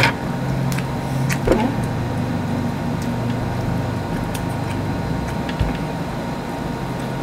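Steady low mechanical hum, with a few faint clicks from eating and a short 'mm' about a second and a half in.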